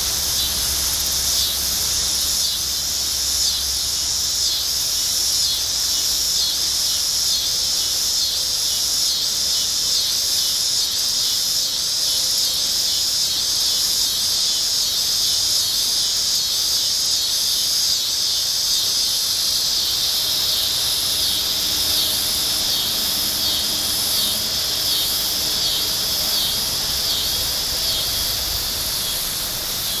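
Insect chorus: a high, continuous buzz that pulses in a steady rhythm, over a soft background hiss.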